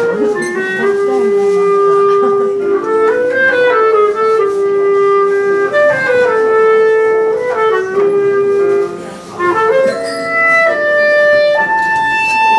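Soprano clarinet playing a slow melody of long held notes that step up and down. It breaks off briefly about nine seconds in, then moves up to higher notes.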